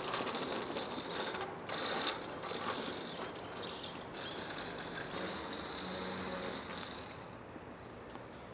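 Child's bicycle coasting, its freewheel ticking steadily as a rapid ratcheting, with the tyres rolling on wet paving; the ticking fades away near the end.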